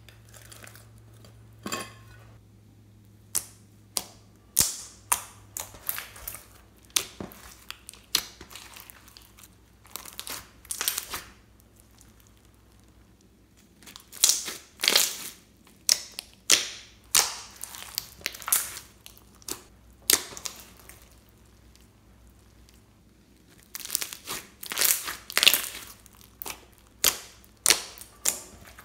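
Clear slime packed with beads and glitter being squeezed and kneaded by hand, giving runs of sharp crackling pops with a couple of short pauses in between.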